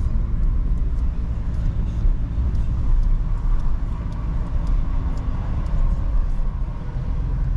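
Steady rumble of a car driving, heard from inside the cabin: engine and road noise, with a few faint ticks.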